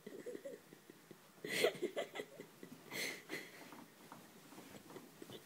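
Soft rustling and scratching of a blanket as a Maltese puppy burrows and shifts about under it, with two brief louder bursts about a second and a half in and again about three seconds in.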